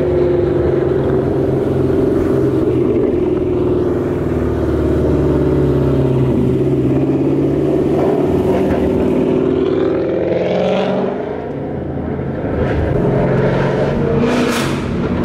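Loud Ford Mustang GT 5.0 Coyote V8 running at steady throttle while driving, its pitch sagging about ten seconds in and then climbing again.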